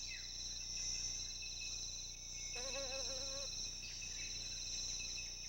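A chorus of insects trilling steadily, one with a fast pulsing trill. About two and a half seconds in, a brief wavering tone sounds for under a second.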